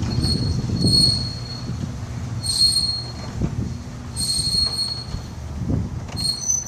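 Commercial garage door closing under a LiftMaster chain-drive opener: a steady low rumble with a high metallic squeal that comes back about every one and a half to two seconds.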